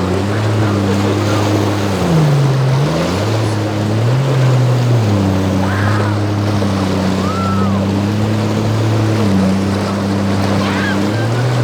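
Motorboat engines running through rough inlet water, their pitch dropping as the throttle eases about two seconds in and climbing back a second later, then shifting again near the end, over a steady wash of waves and wind.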